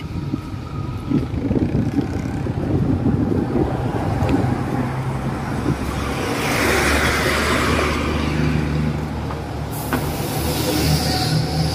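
Street traffic with a bus engine running close by, a steady low hum. There is a burst of hissing about six seconds in and a higher hiss near the end.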